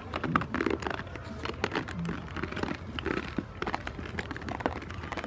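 Goats moving about, making a quick irregular stream of clicks, knocks and rustles.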